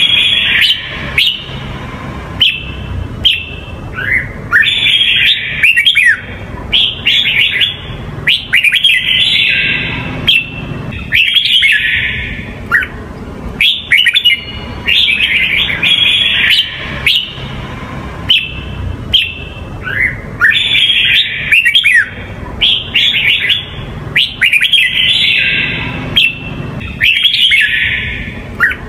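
Red-whiskered bulbul of the Huế song type singing: loud, short phrases of quick sweeping whistled notes, repeated every second or two with brief gaps between them.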